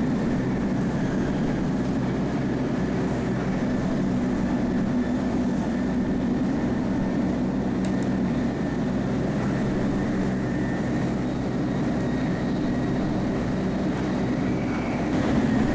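Steady running noise of a Shinkansen bullet train, a rumble with a low hum, heard from inside a passenger car. There is one light click about halfway through.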